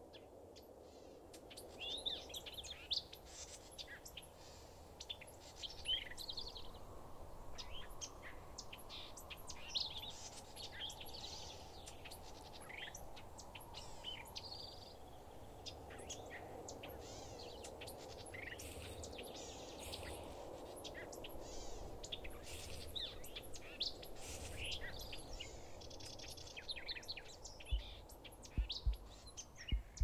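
Woodland birds calling, many short chirps and trills overlapping throughout, over a steady soft background noise. A few soft low thumps come near the end.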